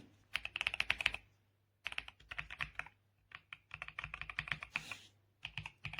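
Typing on an RK Royal Kludge R98 Pro mechanical keyboard: several quick runs of keystrokes separated by short pauses, each key giving a soft click.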